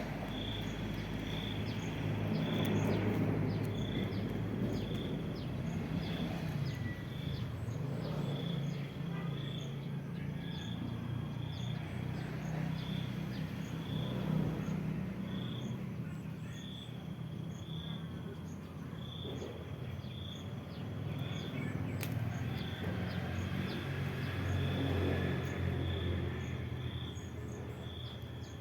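Outdoor ambience: a short, high chirp repeats roughly once a second over a steady low hum.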